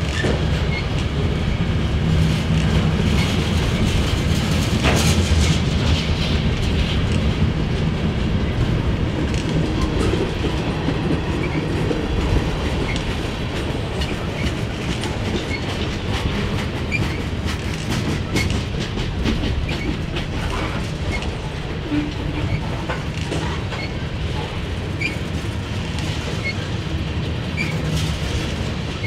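Freight train cars, covered hoppers and then tank cars, rolling steadily past: a constant low rumble with the wheels clicking over rail joints, and scattered brief high squeaks.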